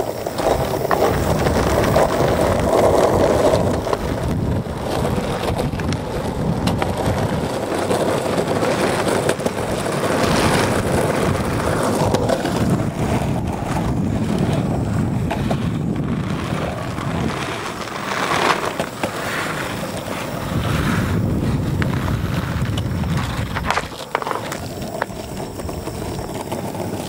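Xlider skate wheels rolling over pavement, a steady rough rolling noise with a few short clicks, with wind buffeting the microphone.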